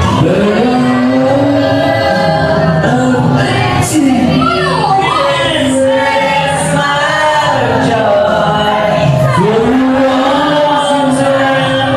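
A group of amateur singers singing a song together into karaoke microphones, loud and amplified, with long held notes and slides between them, over music.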